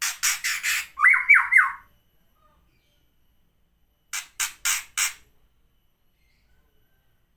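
White-rumped shama (murai batu) giving harsh, rasping calls in quick groups of three or four, with a run of four rising whistled notes about a second in. The bird is recovering from a flu-like cough and hoarseness and is calling again.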